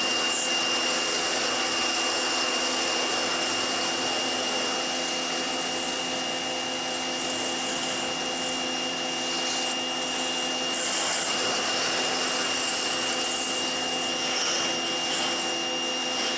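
PowerSmart PS22 electric pressure washer running steadily: a constant motor and pump hum with a thin high tone above it, and the hiss of the water jet striking the shed siding.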